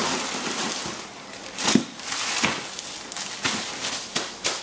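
Rustling and crinkling of packaging as items are dug out of a shipping box, broken by several sharp clicks and knocks, the loudest a little under two seconds in.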